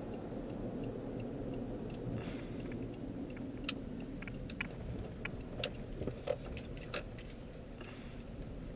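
Steady low road and engine noise inside a Honda CR-V's cabin while driving, with a run of light, sharp clicks roughly every half second from about three and a half to seven seconds in.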